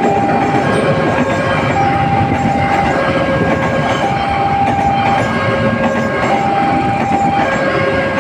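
Railway level-crossing warning siren sounding a two-tone signal that switches pitch about once a second, while a train rolls past with a steady clatter of wheels on rails.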